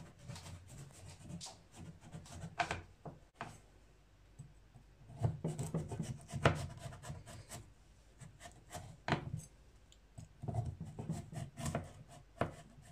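Chef's knife cutting through set besan barfi in a glass baking dish: irregular scraping strokes through the fudge-like sweet, with sharp taps as the blade meets the glass. The busiest stretches of cutting come about five seconds in and again near the end.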